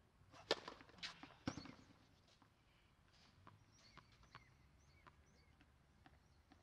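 Tennis racket striking the ball on a serve, a sharp crack about half a second in, followed by two more knocks of ball and racket within the next second. After that come faint ticks of the ball bounced on the clay court and a few faint high chirps.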